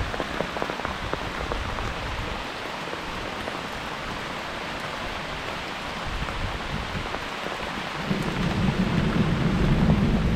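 Heavy rain falling steadily, with many sharp drop hits close by. About eight seconds in, a low rumble of thunder comes in and grows louder.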